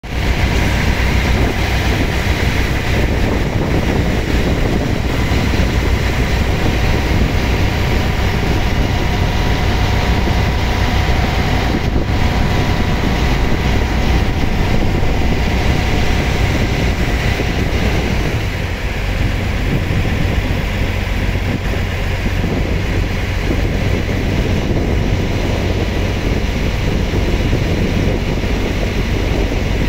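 A motorboat's engine running steadily under way, with wind and rushing water noise.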